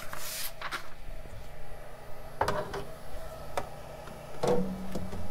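A flexible steel build plate being slid and pressed down onto a 3D printer's bed: a scraping slide at first, then a few separate knocks and clicks as it settles over the bed's locating bumps.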